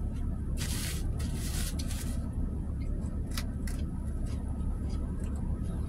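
Eating sounds: crisp crunching of salad in the first two seconds and a few light clicks of a metal fork against the plastic salad container, over the steady low hum of an idling car.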